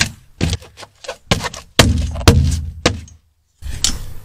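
A quick series of sharp knocks and clatters from parts being handled and set in place, the heaviest thuds about two seconds in. The sound drops out completely for a moment a little past three seconds, at an edit cut.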